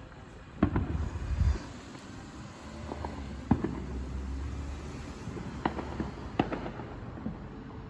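Fireworks going off: scattered sharp bangs and pops, the loudest cluster a little under a second in, with more single bangs every second or two after.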